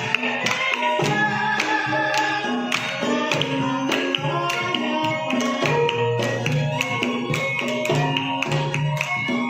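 Javanese gamelan music: struck metallophone notes held over quick, steady hand-drum strokes.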